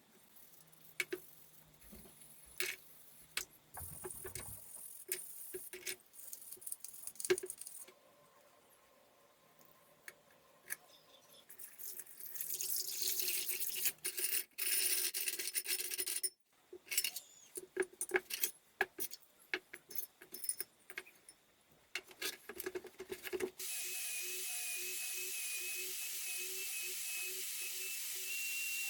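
Clicks, taps and light knocks of small metal parts and tools being handled, with a hissing stretch near the middle. About three quarters of the way through, a small high-speed power tool, like a rotary tool, starts and runs steadily with a high whine.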